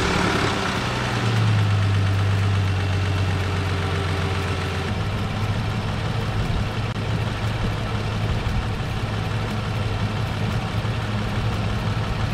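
2003 Nissan Murano's engine idling steadily, just restarted and running to draw coolant into a newly replaced radiator. Its idle note shifts slightly about five seconds in.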